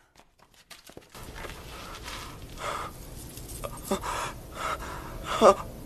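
A person panting heavily in ragged breaths, with short strained gasps about four and five and a half seconds in, after a near-silent first second.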